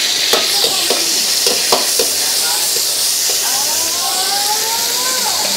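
Food sizzling in a hot wok over a gas flame while a metal ladle stirs it, with several short clacks of the ladle against the wok in the first two seconds.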